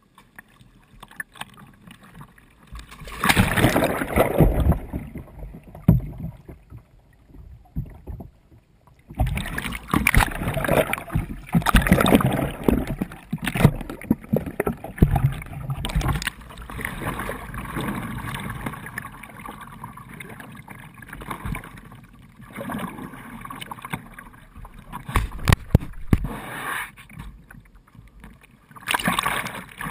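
Water splashing and sloshing around a small whitewater playboat kayak as the paddler takes paddle strokes and rolls, coming in irregular loud surges. In places the sound turns muffled, with the highs gone, as the bow-mounted camera goes under water.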